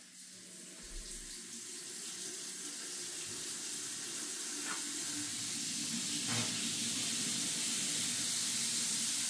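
Water rushing through a shower valve that has just been turned on, steadily growing louder, with a couple of faint spits as air works out of the newly repressurized line.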